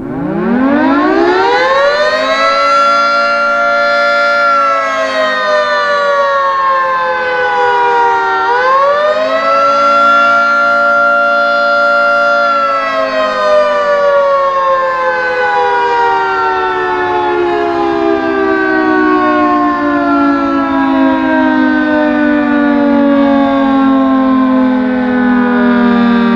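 Federal Signal 3T22 three-tone fire siren sounding a chord that winds up, holds, dips, winds back up and holds, then slowly winds down.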